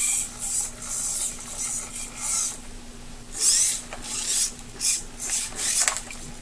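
Metal-gear hobby servos (Tower Pro MG995) of a 5-axis robotic arm whirring in short bursts, about two a second, as the joints are driven from an RC transmitter; some bursts glide in pitch, and a steady low hum runs underneath.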